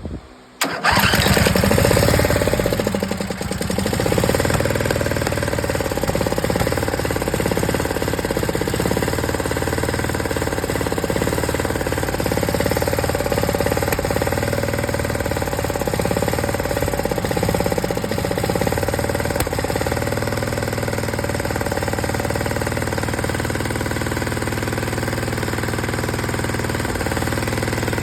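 22 hp Briggs & Stratton V-twin engine catching about a second in on its first start after a complete rebuild. It runs loudest for the first couple of seconds, then settles into steady running.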